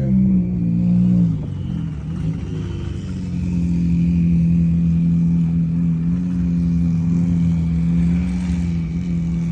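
Car engine running past in a steady low drone, its pitch wavering in the first second or so, then holding level.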